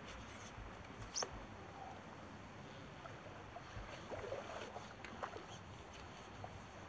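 Faint wind and outdoor background, with a sharp click about a second in and a few light knocks and rattles around four to five seconds in as a fishing pole and landing net are handled.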